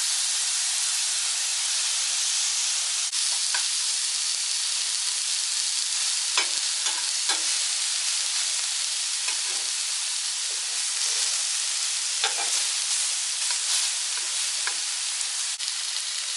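Onions, tomatoes and peppers sizzling on the hot plate of an electric raclette grill: a steady frying hiss, with a few light clicks scattered through it.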